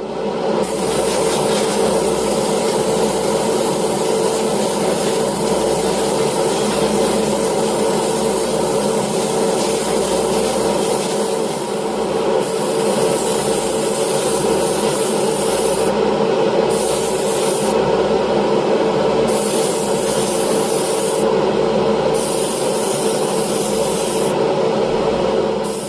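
A small motor running steadily with a hiss over it. In the second half the hiss repeatedly cuts out and back in, about five times.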